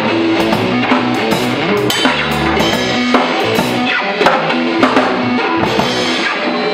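Drum kit played live with a band, with frequent hits on cymbals, toms and bass drum over held notes from the other instruments.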